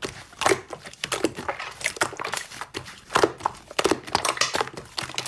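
Hands squeezing and kneading slime, giving a string of irregular sticky pops and crackles.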